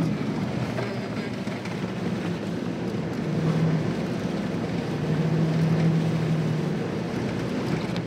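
Cabin noise of a 2002 Jeep Wrangler TJ on the move: steady engine drone with road and wind noise. A low hum swells briefly about a third of the way in, then again for a longer stretch past the middle.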